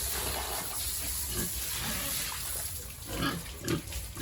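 Pigs grunting, with a couple of louder grunts near the end.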